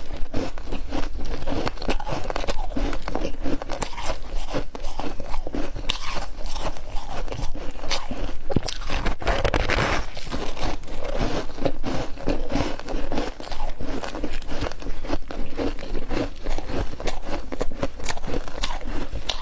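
Close-up crunching and chewing of freezer frost in the mouth: a dense, continuous run of sharp crackles.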